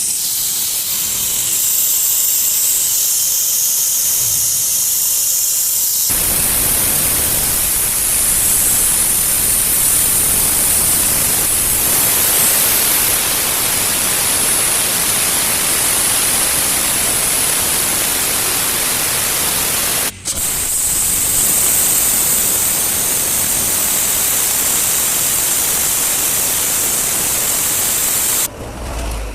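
Compressed gas blown through a refrigerator's refrigerant tubing to flush the system, a loud steady hiss. It is high-pitched at first, turns fuller and louder about six seconds in, breaks off for an instant about two-thirds of the way through, and stops shortly before the end.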